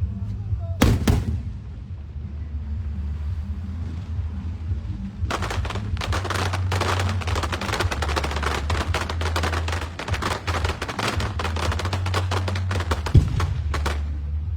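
Fireworks going off: one loud bang about a second in, then from about five seconds a rapid barrage of many crackling reports, with a sharper bang near the end.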